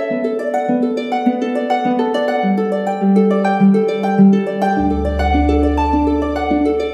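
Closing background music: a quick run of plucked notes, each starting sharply and fading, with a deep low note coming in about five seconds in.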